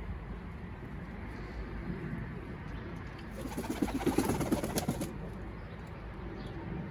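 Pouter pigeons cooing, a low steady murmur. About three and a half seconds in, a louder flurry of rapid sharp beats lasts nearly two seconds.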